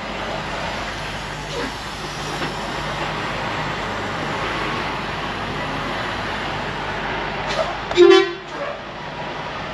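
Semi truck engine running steadily as the rig creeps in, heard from inside the cab, then about eight seconds in a short, loud horn toot.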